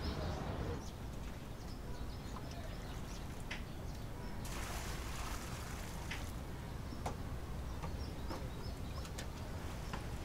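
Quiet outdoor ambience: a steady low background noise with a few faint, scattered bird chirps.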